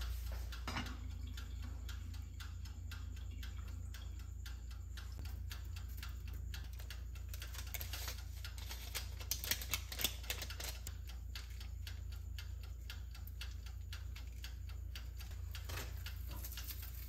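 Wind-up dial timer of a running toaster oven ticking steadily, several light clicks a second, over a low hum.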